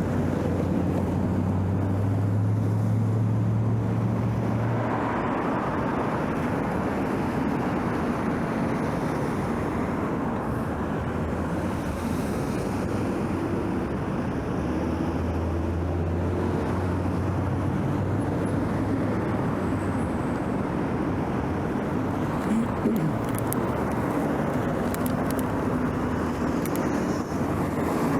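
Steady road-traffic noise with cars passing, heard from a moving bicycle. A low engine hum comes up twice: in the first few seconds and again about halfway through. A few faint clicks near the end.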